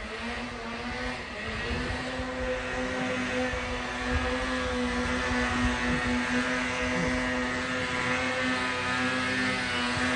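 Snowmobile engine running at steady high revs through deep powder, its pitch holding nearly even while it grows gradually louder as the sled comes closer.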